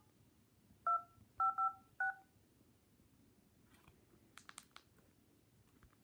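Phone keypad touch tones as a number is dialed: four short beeps about a second in, two of them the same digit back to back, each a pair of notes sounded together. A few faint clicks follow a couple of seconds later.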